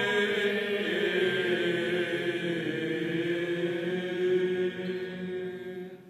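Byzantine chant sung by a group of men's voices, holding a long final note over a lower sustained drone. The singing fades out near the end.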